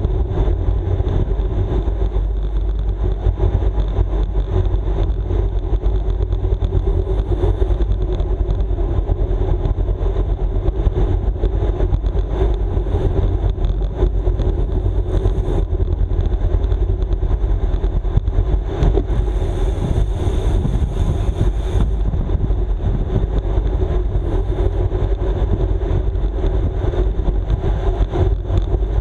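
Steady wind rush over the microphone and tyre hum from a road racing bike ridden at race speed.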